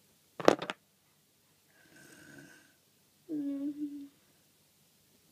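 A sharp knock, then a person imitating snoring: a breathy in-breath about two seconds in, followed by a hummed out-breath.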